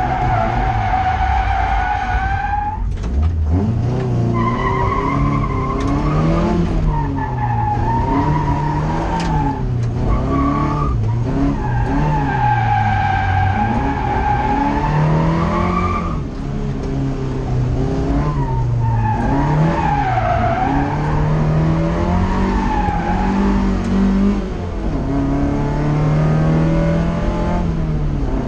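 Seat 1430's four-cylinder engine heard from on board, revving up and dropping back again and again through gear changes. Over it, the tyres squeal through corners in long wailing stretches several seconds each.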